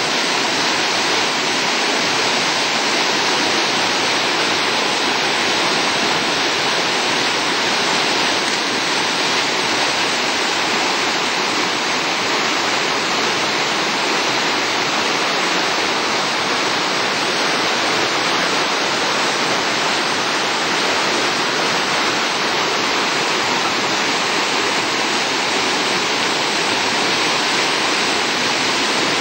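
Floodwater rushing and churning in a swollen forest stream after a summer thunderstorm, a loud, steady roar of whitewater.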